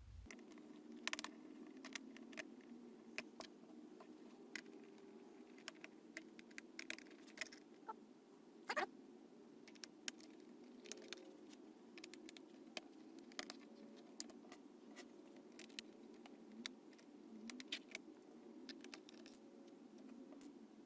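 Faint, scattered clicks and taps of a small screwdriver backing tiny screws out of a laptop's bottom case and the screws being set down, over a faint steady hum.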